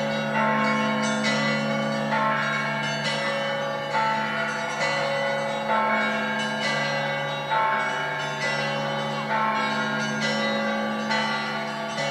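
Russian Orthodox church bells ringing by hand. Higher bells are struck in a steady rhythm about once a second over the continuous low hum of the larger bells.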